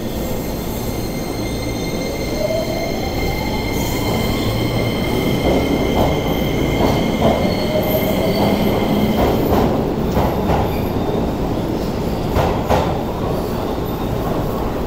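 Keio 8000 series electric train pulling out of a station: the Hitachi IGBT inverter whine rises steadily in pitch as it accelerates, over high steady tones that fade out about halfway. From about six seconds in, the wheels clack irregularly over rail joints as the cars pass.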